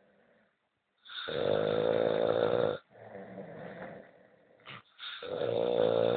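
A man snoring: two loud snores, each about a second and a half long, the second starting about five seconds in, with a quieter breath between them.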